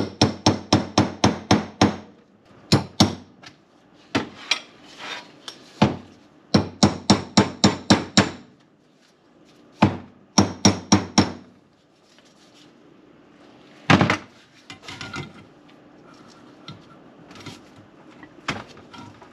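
Hammer tapping on a metal transmission part, in quick runs of about five strikes a second with pauses between, and one harder single blow about two-thirds of the way through.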